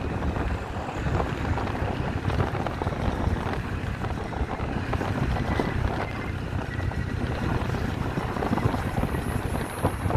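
Motorcycle engine running on the move, mixed with wind buffeting the microphone.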